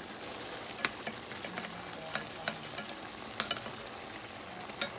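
Metal spoon stirring a pot of vegetables and pork in broth, with several sharp clinks of the spoon against the pan over the steady hiss of the simmering pot.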